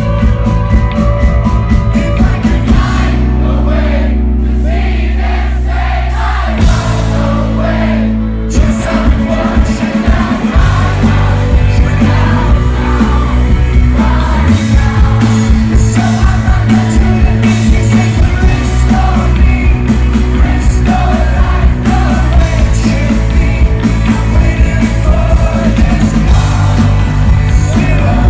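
A rock band playing live with a lead singer: drums, bass and guitars at full volume. About three seconds in the drum hits thin out under held chords, and the full beat comes back in about eight seconds in, with the singing over it.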